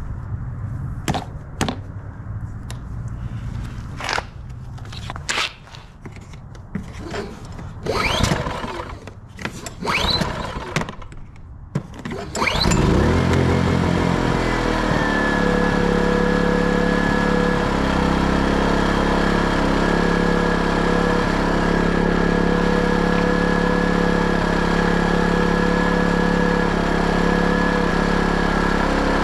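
Plugs and adapters clicking and knocking as they are fitted into a generator's outlet panel. About twelve seconds in, the Erayak 4500PD dual-fuel inverter generator's engine starts and settles into a steady run, with a thin high tone above it.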